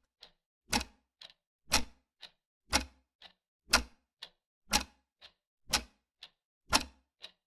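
Ticking clock sound effect: a steady tick-tock, a louder tick each second with a softer one halfway between.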